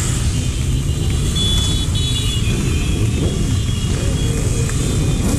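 BMW motorcycle riding slowly, a steady low rumble of its engine and wind on the helmet-mounted camera's microphone.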